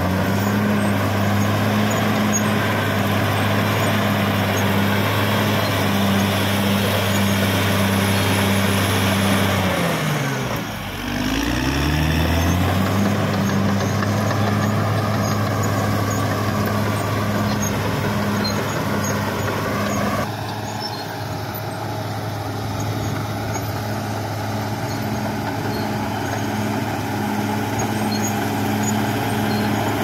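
Caterpillar D6R XL bulldozer's diesel engine running steadily. About ten seconds in, its pitch sags sharply and climbs back within about two seconds. About twenty seconds in, the higher-pitched noise drops away abruptly.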